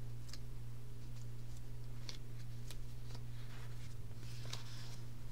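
Paper sheets handled and turned by hand: scattered soft ticks and a short rustle about four seconds in, over a steady low hum.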